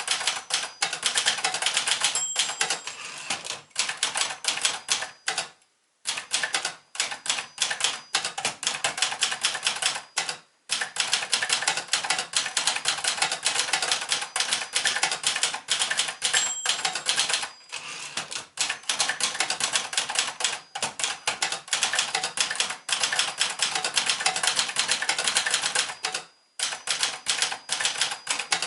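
1965 Brother De Luxe 895 manual portable typewriter being typed on: rapid key and typebar clacks in quick runs, broken by a few short pauses. A few brief high dings sound over the typing.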